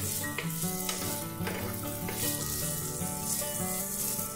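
Diced green beans, carrot and potato sizzling in oil in a kadai, stirred with a wooden spatula that scrapes the pan a couple of times.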